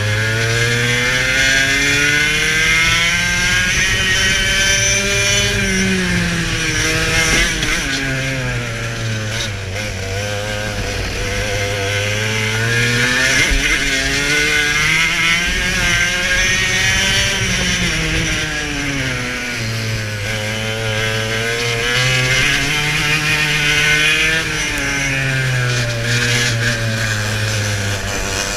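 TKM two-stroke kart engine at racing speed, its pitch climbing along the straights and dropping back into the corners, about five times over, with wind rushing over the kart.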